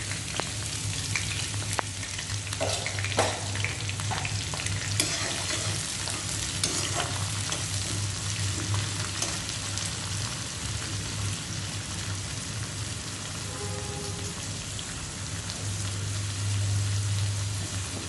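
Sliced onion sizzling steadily in hot sesame oil in a heavy-bottomed kadai, with a slotted metal ladle clinking against the pan as it is stirred in the first several seconds. A steady low hum runs underneath.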